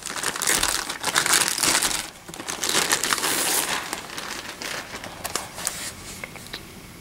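Clear plastic bag crinkling as it is pulled off a laptop, in two loud spells over the first four seconds, followed by quieter handling with a few faint clicks.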